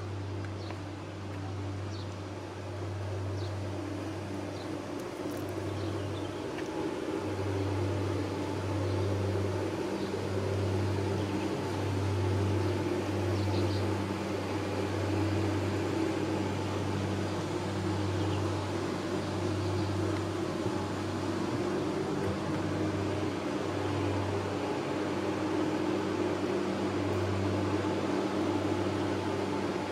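Steady low mechanical hum, with a deeper drone that cuts in and out irregularly every second or so, and a few faint light ticks.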